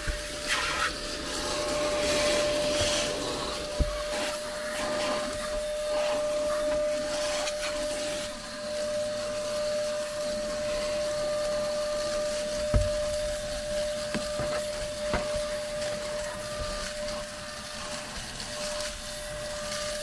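iwoly C150 cordless stick vacuum running steadily with a constant whine over the rush of its suction as it cleans a car interior, with a few short knocks along the way.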